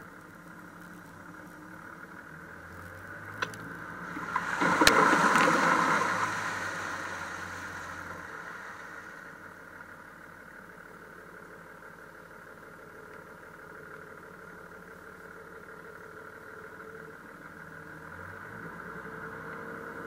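Toyota Land Cruiser engine running steadily at low speed over a rough dirt track, picked up by a camera on the outside of the body. Two sharp knocks come about three and a half and five seconds in, and with the second a loud rushing noise swells up and fades away over a few seconds.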